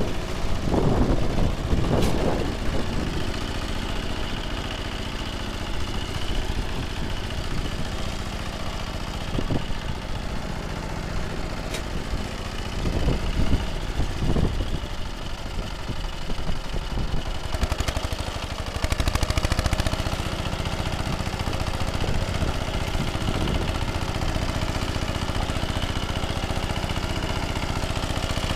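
10 hp ZUBR walk-behind tractor engine running steadily while driving its rotary tiller through the soil, swelling louder a few times.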